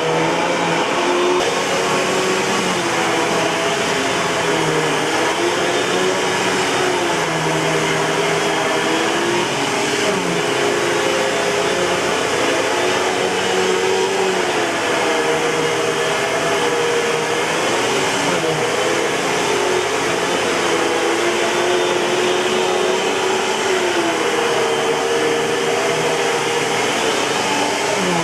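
Eureka Boss 6833B canister vacuum cleaner running continuously, a steady rushing drone with a motor whine that shifts a little up and down in pitch every few seconds.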